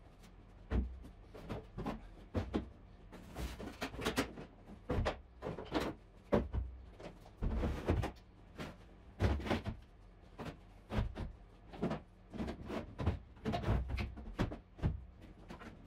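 Plastic power-tool cases being knocked and set onto a wooden shelf unit, a fast, irregular run of knocks and clatters.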